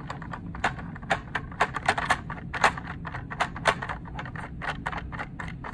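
Quick, irregular clicking and ticking of hard plastic as the Vernier fastener bolt's star knob is turned by hand and tightened down on the force sensor and cart, several clicks a second.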